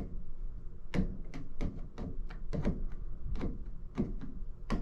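A quick, uneven run of light thumps and taps, about three a second, over a faint low hum.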